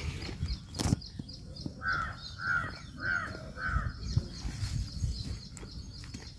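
A bird calls four times in an even run, about half a second apart. A single sharp knock comes about a second in, over a low rumble.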